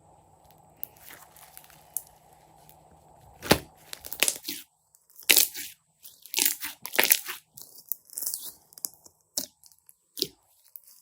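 Slime-making materials being handled, giving irregular crackling and crunching noises in short bursts, the loudest about three and a half seconds in.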